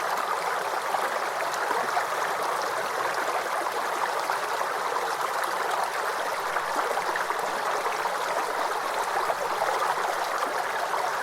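A water stream running steadily: an even rush of flowing water with no breaks.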